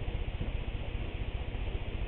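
Steady low background hiss and hum, with no distinct knock or blow.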